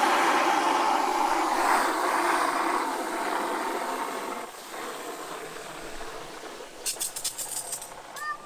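Water jetting from a garden hose spray nozzle into a plastic bucket, filling it. The steady splashing rush is loudest for the first four seconds, then drops to a quieter rush, with a few sharp clicks near the end.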